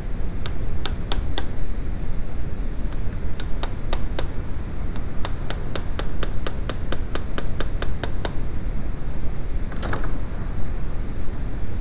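Small ball-peen hammer tapping a steel pin punch on the distributor held in a vise: sharp metallic taps, a few early, then a quick even run of about a dozen. A clatter near the end as the tools are set down on the steel bench, over a steady low background rumble.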